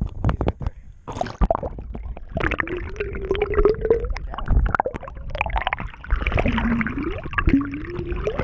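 Action camera held underwater: muffled gurgling and sloshing of water around the camera housing, with a few sharp knocks at first and two long wavering tones later on.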